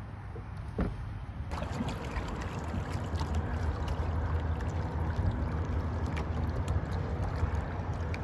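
Wind rumbling on the microphone out on open water, with water lapping and small splashes and ticks against a kayak. It starts abruptly about a second and a half in, after a quieter stretch with a single soft knock.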